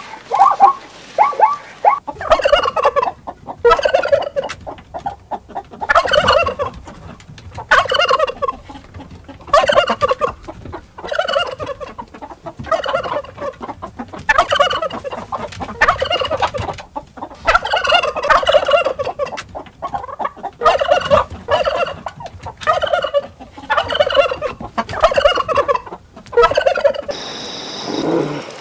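Domestic bronze turkey tom gobbling over and over, from about two seconds in, a rapid warbling gobble every second or two.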